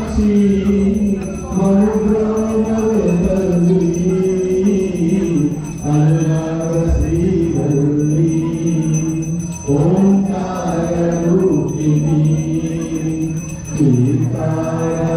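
Devotional song during an aarti: singing in long held notes that step up and down, over music.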